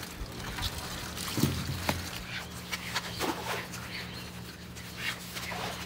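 Freshly hauled crab ring handled on a wooden dock: water dripping from its wet netting, with scattered clicks and knocks and a thump about one and a half seconds in.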